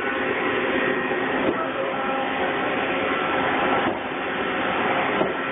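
Shop machinery running steadily: a dense mechanical whirr with several steady tones, shifting slightly about one and a half and four seconds in.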